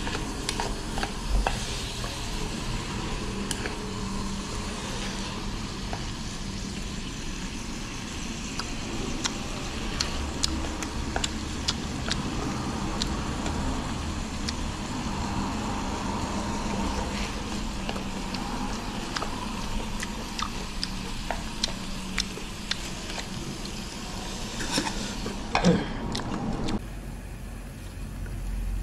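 Pork and cabbage stir-frying in a wok: a steady sizzle with frequent short clicks and scrapes from stirring. The hiss thins out near the end.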